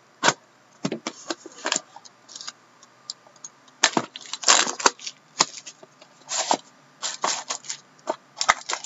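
A 2013-14 Upper Deck Ultimate hockey card box being opened and its plastic-wrapped pack pulled out: irregular sharp crackles and rustles of cardboard and plastic wrap, in bunches with short gaps between.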